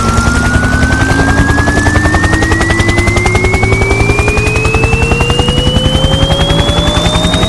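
Speaker run-in (burn-in) test signal: a recorded helicopter's rotor chop, a fast even beat, layered with two pure sweep tones slowly rising in pitch. The mix is made to flex new speaker suspensions across the whole frequency range.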